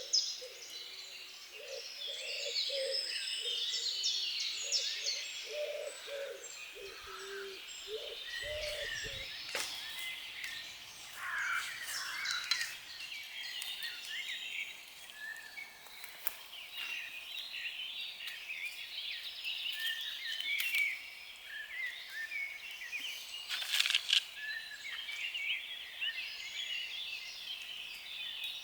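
Many songbirds chirping and singing in a dense, overlapping chorus. A lower, evenly repeated call runs under it for the first third, and a few short clicks fall later on.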